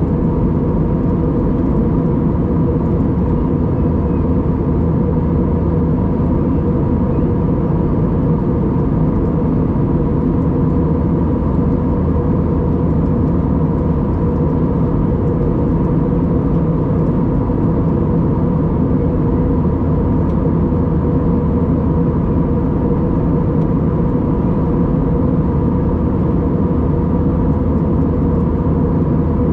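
Steady cabin drone of an Airbus A320-232 from its IAE V2500 turbofan engines and airflow: a low, even rumble with a thin steady whine on top, unchanging throughout.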